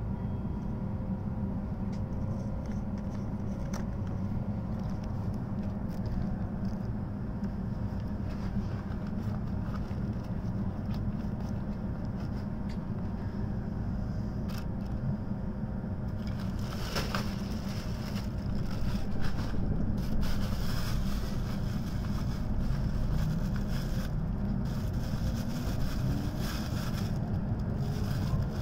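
Cabin of an N700S Shinkansen standing at the platform: a steady low hum that grows louder about halfway through. Near the end the traction motors set up a whine rising in pitch as the train starts to pull away.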